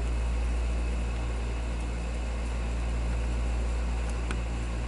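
Steady low rumbling noise with an even hiss over it, unchanging throughout, and a couple of faint ticks about four seconds in.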